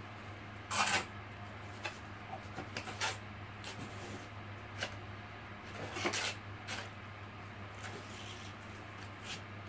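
Wire brush of a copper-pipe cleaning tool scrubbing the end of a copper water pipe before soldering: irregular short scratchy strokes, the loudest about a second in and again around six seconds in.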